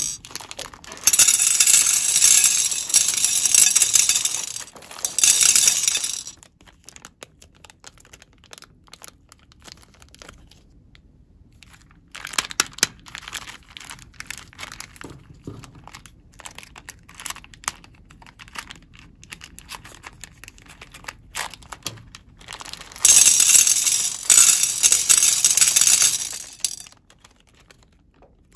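Small plastic beads rattling and clicking against a glass bowl, mixed with a plastic wrapper crinkling. It comes in two loud stretches of a few seconds each, with scattered single clicks between them.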